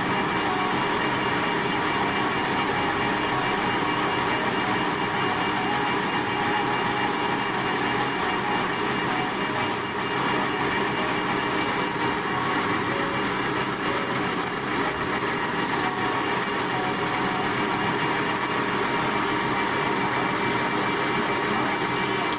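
Machinery running steadily: a constant mechanical noise with a few faint steady tones underneath, unbroken throughout.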